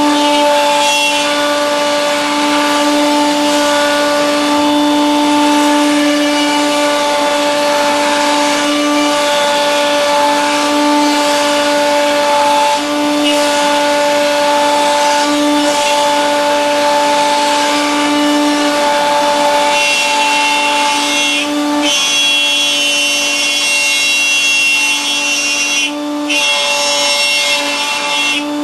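Router mounted in a router table running at a steady speed with a steady whine, its bit cutting wood as a board is pivoted into it to cut a circle. The sound dips briefly a couple of times.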